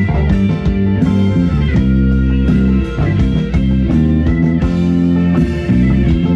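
A live band playing an instrumental passage of a song, with guitar prominent over bass and a steady beat.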